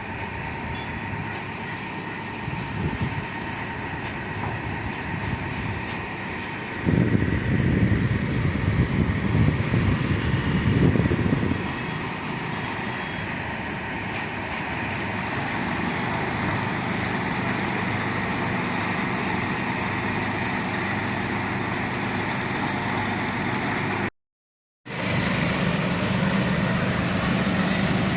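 Heavy construction machinery engines running steadily, with a louder low stretch under load from about seven to eleven seconds in. The sound drops out for under a second near the end and comes back as a steadier engine hum.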